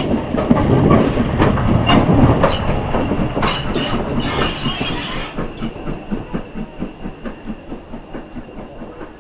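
Hunslet Austerity 0-6-0 saddle-tank steam locomotive passing close by, with sharp exhaust beats and clanking. About four seconds in there is a burst of steam hiss. Then its rhythmic beats fade steadily as it draws away.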